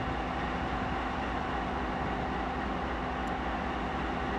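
C36-7i diesel-electric locomotive idling at a distance: a steady hum with a few faint held tones over a low rumble.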